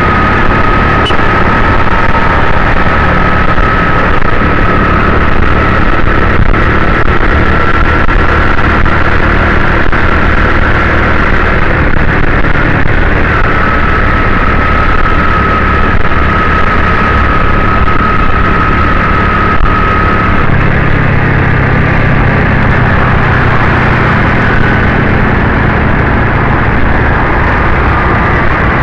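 Engine and road noise of a vehicle driving in city traffic, loud and steady, recorded from aboard the moving vehicle. A thin steady whine sits above it until about two-thirds of the way through.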